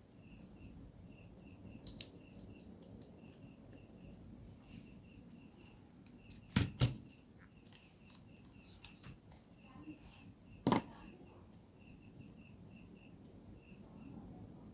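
Sharp clicks and taps of tools and plastic parts while a Samsung Galaxy A03s phone is being taken apart: two close together about halfway through and a single one a few seconds later, with fainter ticks between. A faint, regular high chirp repeats underneath.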